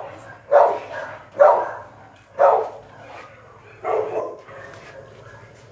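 American Bully dog barking: four single barks about a second apart, the last one weaker and doubled.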